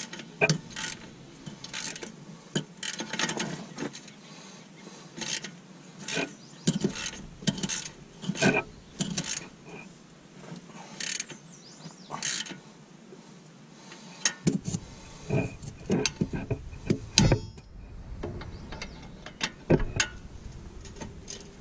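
Hand ratchet with a 15 mm socket clicking in short runs of strokes while loosening the rusty front sway bar bushing bracket bolts, with odd metal knocks of tool on bracket.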